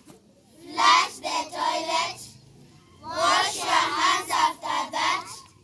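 Children singing in short phrases, with brief pauses between them.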